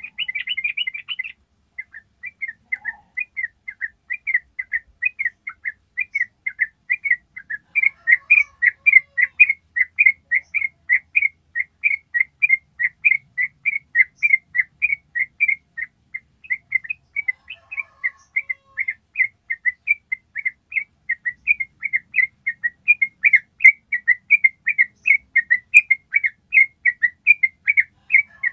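Yellow-vented bulbul (trucuk) singing its long 'ropel' song: a fast, unbroken run of high repeated notes, about three a second, broken only briefly about a second and a half in.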